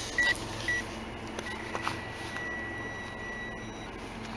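Metal detector's electronic target tone: two short high beeps, then one steady high beep held for about two and a half seconds.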